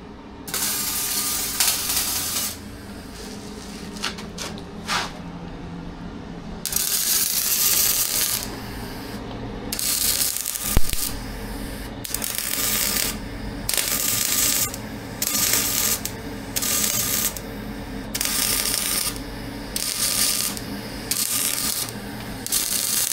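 Repeated rasping strokes of a hand tool working material for a cellar hatch frame. The strokes fall about once a second through the second half.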